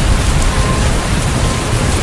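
Heavy rain pouring steadily, over a deep low rumble of thunder.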